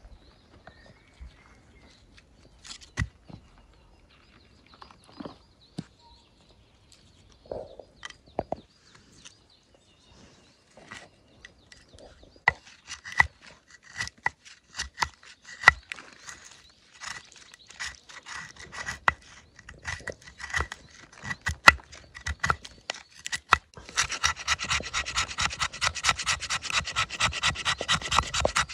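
Scraping and rubbing strokes, scattered at first, growing denser about halfway through, then turning into a fast, steady run of rasping strokes near the end.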